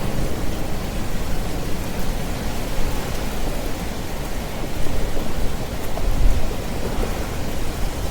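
Steady rain falling, with a low rumble of thunder underneath that swells about five seconds in.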